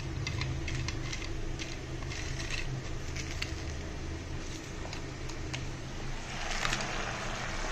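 Pot of rice and vegetables simmering in water on the stove: faint scattered crackling over a low steady hum, the crackling swelling louder about six seconds in.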